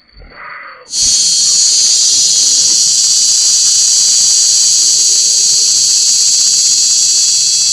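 A loud, steady high-pitched hiss that starts abruptly about a second in and holds without change.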